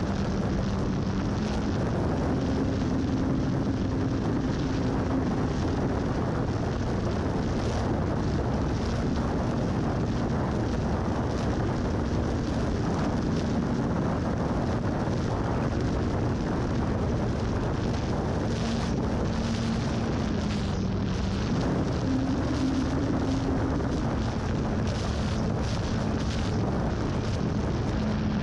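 Electric RC plane's motor and propeller droning, heard from a camera strapped to the plane in flight, under heavy wind rush on the microphone. The motor's pitch rises about two seconds in, drops around twenty seconds in, then rises again, following the throttle.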